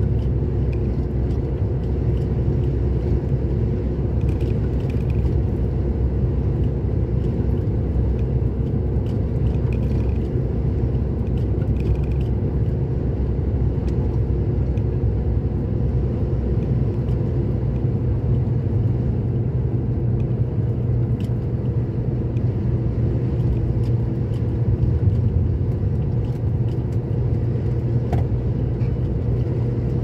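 Steady engine drone and road noise of a vehicle cruising at an even speed, heard from inside the cab.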